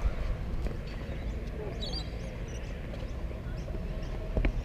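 Low rumbling background noise, with a few faint bird chirps about two seconds in and a single sharp click near the end.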